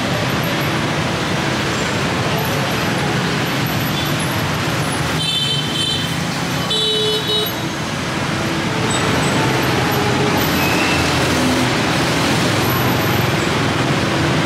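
Steady street traffic noise of passing motor vehicles, with two short high-pitched tones a little before halfway.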